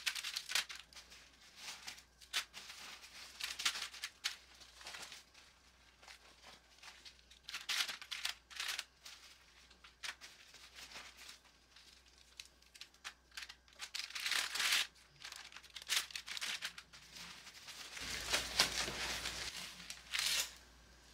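Intermittent rustling and crinkling of paper and foil as raw bacon slices are peeled off their paper wrapping and laid on a foil-lined sheet pan.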